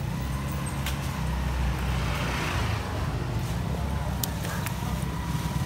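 Street ambience dominated by the low, steady rumble of motor vehicle engines running nearby, with a swell of hiss about two seconds in and a couple of sharp clicks past the four-second mark.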